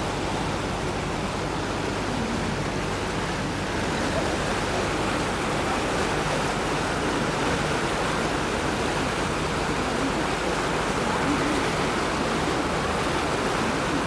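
Steady rushing noise aboard a moving river boat, with a low engine hum underneath.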